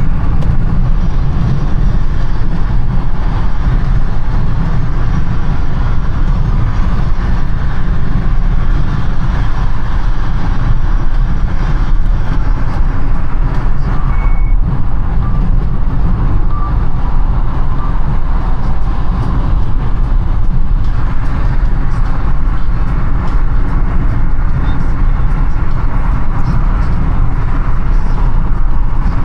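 Steady road and engine noise of a car driving through city traffic, a loud, even low rumble, with a short electronic beep about halfway through.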